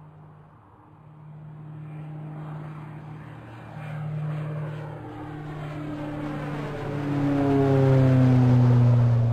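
A low engine-like drone that builds steadily in loudness, with several higher tones sliding down in pitch as it peaks near the end.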